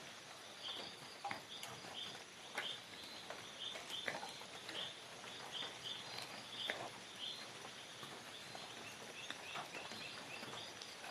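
Forest ambience: many short high chirps repeating irregularly over a faint steady high insect drone, with scattered light clicks and crackles.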